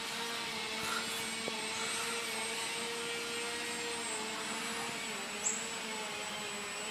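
Hobby King Breeze radio-controlled plane's motor and propeller running overhead, a steady drone whose pitch wavers slightly and dips a little after about four seconds. A brief high chirp comes about five and a half seconds in.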